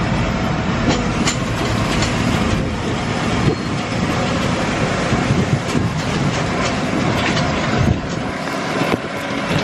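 Hayride wagon rattling and rumbling over bumpy ground, with scattered knocks and clatters over a steady low rumble.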